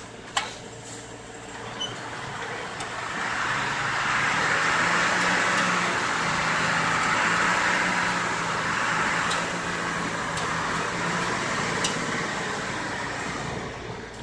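Small dump truck's engine revving to drive its hydraulic hoist as the bed tips up. A steady drone that swells a few seconds in and eases off near the end, with a sharp click near the start.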